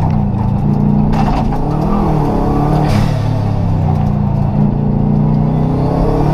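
Rally car engine heard from inside the stripped, caged cabin, running hard with its engine speed dipping and climbing again a couple of times. Two short sharp cracks come about a second and about three seconds in.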